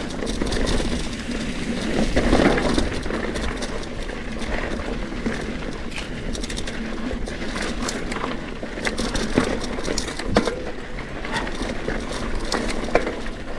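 Trek Fuel EX 9.7 mountain bike climbing a rocky trail: tyres crunching over dirt and rock, with frequent clicks and knocks as the bike rattles over obstacles.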